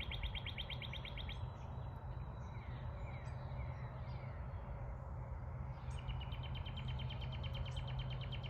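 A songbird's rapid trill, heard twice: one ending about a second and a half in, another starting about six seconds in. A few faint chirps fall between them, over a steady low rumble.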